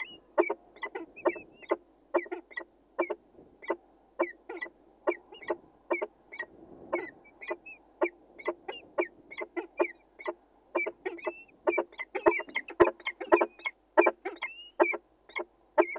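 Peregrine falcon calling in a fast, unbroken series of short repeated notes, about three a second.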